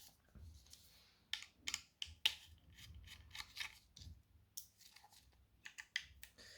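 Scattered light clicks and scrapes at irregular intervals, from hands handling a laptop's plastic case and small parts.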